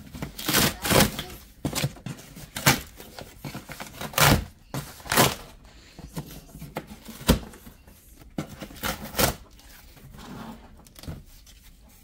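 Cardboard packaging being pulled open and torn by hand: a run of irregular rips, scrapes and knocks, busier in the first half and thinning out toward the end.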